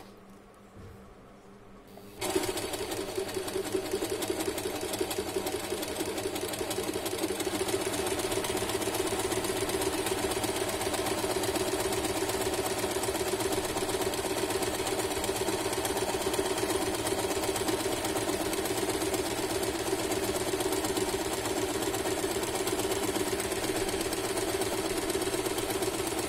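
Usha Janome Stitch Magic electric sewing machine starting suddenly about two seconds in, then running at an even, rapid rate while sewing a dense decorative stitch with the needle swinging at full stitch width and a short stitch length.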